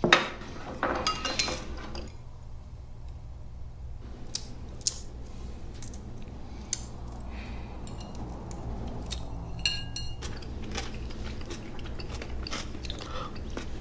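Tableware at a meal: scattered light clicks and taps of chopsticks on porcelain bowls, with a few ringing clinks about ten seconds in, and soft crackling as a cooked shrimp is peeled by hand, over a faint low hum.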